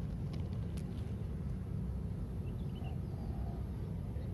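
Wind buffeting the microphone: a steady, choppy low rumble, with a few faint high chirps about halfway through.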